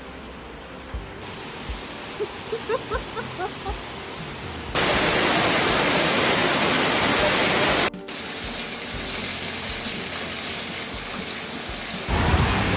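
Steady rain falling, with the level changing abruptly several times and a much heavier downpour for about three seconds in the middle. A few short high chirps come over it about two to four seconds in.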